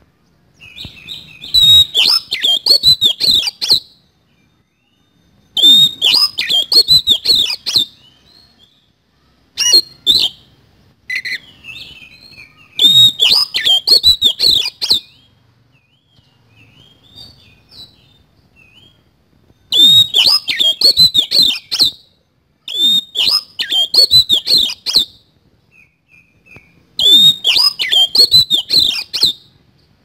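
Oriental magpie-robin (kacer) singing in seven loud bursts of about two seconds each. Each burst is a rapid run of harsh, scratchy notes, the rough fill-in phrases (isian kasar) prized in this bird's song, and softer chirps fall between the bursts.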